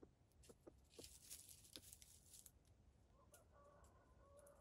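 Near silence: a few faint ticks and a soft rustle as a red junglefowl rooster pecks at the leaf-littered ground, then a faint, steady low fowl call starting about three seconds in.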